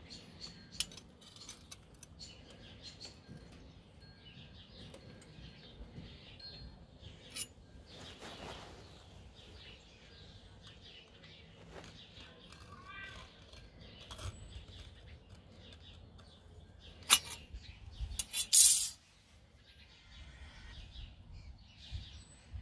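Metal marking-out tools (a steel rule and a scriber) clicking and tapping against a flat steel bar, with birds chirping in the background. About 17 seconds in there is a sharp click, then a loud scraping stroke of just under a second as the scriber point scratches a line into the steel.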